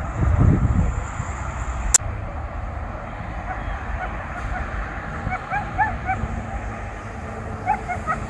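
Police dogs yelping in short high bursts, a cluster about five seconds in and another near the end, over a steady low outdoor rumble. A louder low rumble comes in the first second and a single sharp click about two seconds in.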